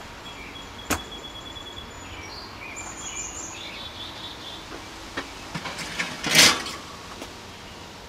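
Masterbuilt electric smoker being opened: a sharp click about a second in, then a short, loud metallic scrape near the end as the door swings open and the metal rack of ribs is slid out. Birds chirp in the background.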